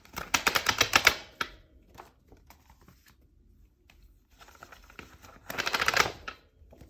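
Stack of punched planner pages worked on and off the metal binding discs of a disc-bound planner: a rapid run of small clicks and snaps, twice, the first lasting about a second and a half and the second about a second near the end.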